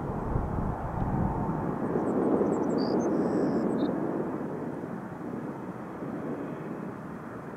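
Boeing 787-9 jet airliner's engines rumbling as it comes in to land, swelling about two seconds in and then fading away.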